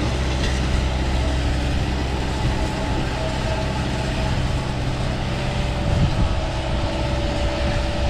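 Caterpillar 289D compact track loader's diesel engine running steadily at working speed as it drives a hydraulic power box rake through gravel. A steady whine runs above the engine from about three seconds in.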